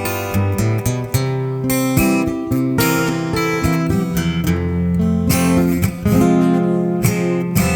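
Acoustic guitar strumming chords, an instrumental passage of the song with no singing.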